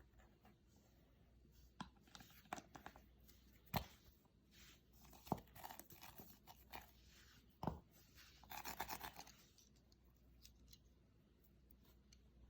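Faint kitchen handling sounds: scattered light clicks and knocks, with a brief rustling scrape about nine seconds in.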